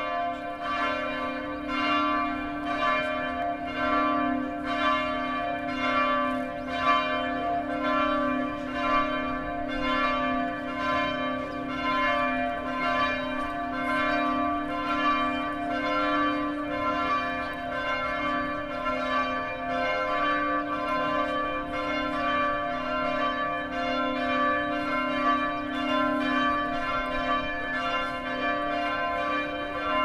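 Church bell ringing as a funeral bell, struck over and over at about two strikes a second. Each strike rings out and overlaps the next over a steady low hum.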